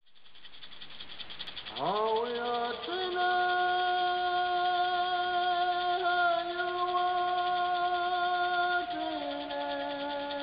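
Opening music: a high fast shimmer, joined about two seconds in by a tone that sweeps up and holds long, steady notes, changing pitch twice.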